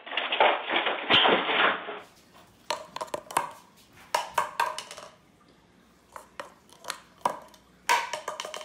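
A loud burst of noise for about the first two seconds. Then bunches of sharp clicks and taps: a sun conure pecking its beak against a granite countertop.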